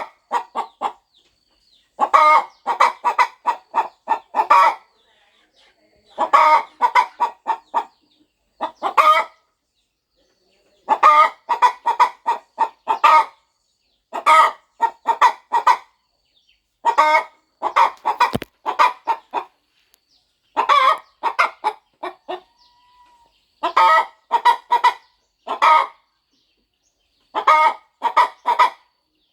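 A hen clucking in repeated bouts of several quick clucks, with a pause of a second or two between bouts.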